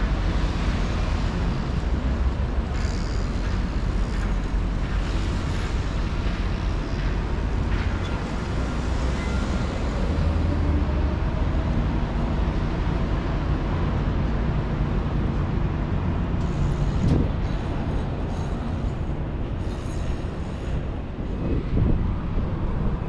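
City street traffic: cars driving through a downtown intersection, a steady low rumble of engines and tyres.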